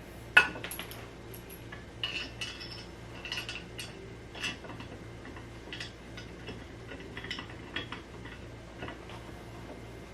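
Screws and small metal furniture fittings clinking and tapping as flat-pack furniture is assembled: one sharp knock about half a second in, then scattered light clicks.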